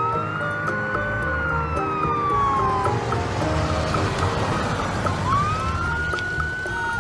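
Wailing siren sound effect: a slow rise then a long fall in pitch, starting again about five seconds in, over light background music.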